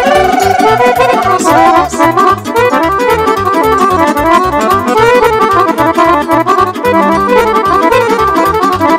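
Live Romanian party band playing an instrumental break between verses: a fast lead melody in quick runs over a steady, driving bass beat.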